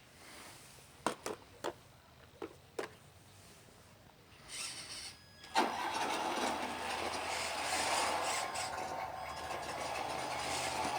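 A few sharp clicks, then a radio-controlled construction model's motor starts about five and a half seconds in and runs steadily with a whine.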